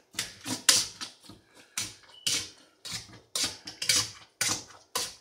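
Potato masher thudding and squishing down into thawed fruit chunks in a pot, in quick repeated strokes, about two a second.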